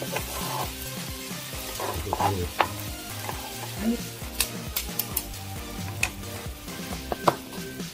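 Fried rice with carrot, onion and kimchi sizzling on a hot griddle pan while a wooden spatula stirs and scrapes it. Sharp clicks of utensils on the pan come in now and then, the loudest near the end.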